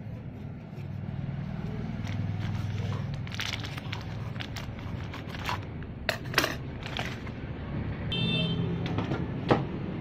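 Plastic spare-parts bag crinkling and rustling in short irregular bursts as a new washing-machine seal is taken out of it, over a steady low hum. A brief high-pitched tone sounds a little after eight seconds in.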